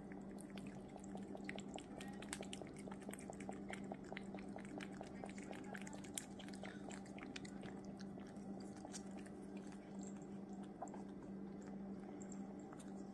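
Tabby cat licking a lickable cream treat from a squeeze tube: a rapid run of small wet tongue clicks, several a second, with a steady low hum underneath.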